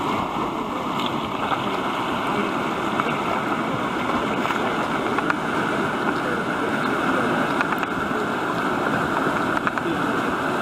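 Whitewater rushing steadily through a river wave and over rocks, heard close by from a kayak.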